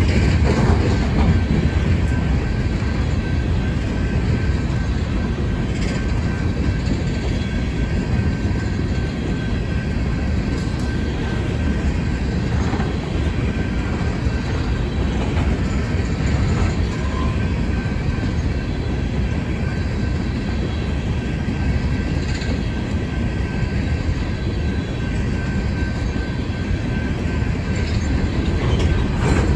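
Empty coal hopper cars of a freight train rolling past at steady speed: a continuous heavy rumble of steel wheels on the rails, with scattered clicks over the rail joints and a faint thin wheel squeal.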